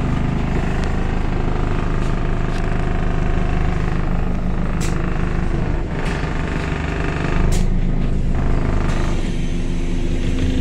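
Diesel engine of London bus 36656 running while the bus moves, heard from inside the passenger saloon, with a few short clicks and rattles; it gets a little louder about two thirds of the way through.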